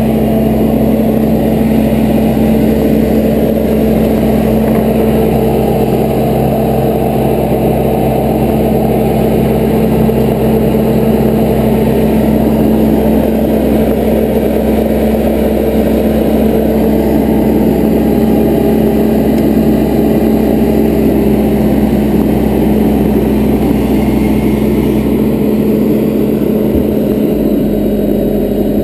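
Bobcat skid steer's engine running steadily, with an unbroken hum, while the machine sets down one attachment and picks up another.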